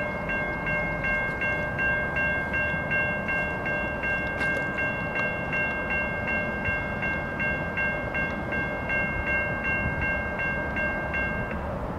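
Railroad grade-crossing bell ringing steadily at about three strikes a second, stopping near the end, over a low steady rumble.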